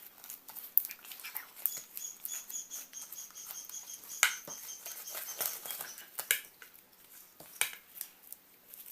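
A spoon stirring sticky glue-and-shaving-foam slime in a container, with irregular clicks and scrapes as it knocks against the sides. A faint steady high tone runs in the background from about two seconds in until about six seconds.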